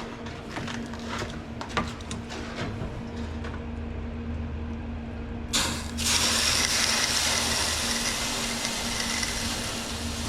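A low steady hum with scattered clicks and knocks, then about five and a half seconds in a MIG welding arc strikes and runs on as a steady crackling sizzle, laying a ring of weld around a worn pin to build it up.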